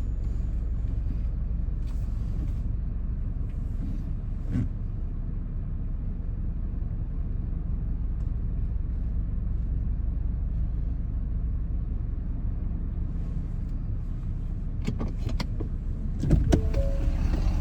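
Vehicle engine idling, heard from inside the cabin as a steady low rumble. Near the end come a quick cluster of clicks and a brief whirring tone.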